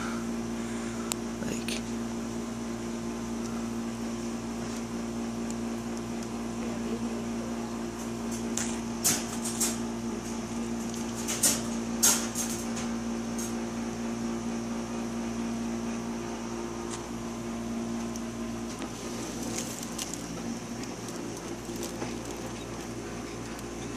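Steady low hum of a running aquarium filter. A few short, sharp taps come about nine to twelve seconds in.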